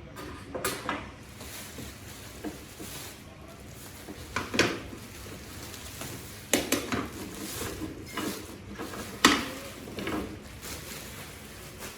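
Hard objects knocking and clattering as they are handled, in irregular bursts with sharp knocks about 4.5, 6.5 and 9.3 seconds in.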